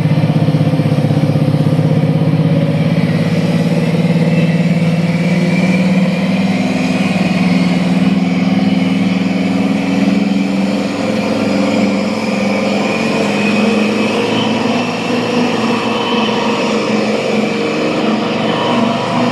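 Class 55 Deltic locomotive D9009 pulling away under power, its twin Napier Deltic two-stroke diesel engines giving a loud, steady drone that slowly rises in pitch as it gathers speed.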